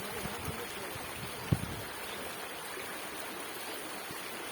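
Stream water rushing over low rocky cascades in a steady wash. A few low thumps come in the first couple of seconds, the loudest one about a second and a half in.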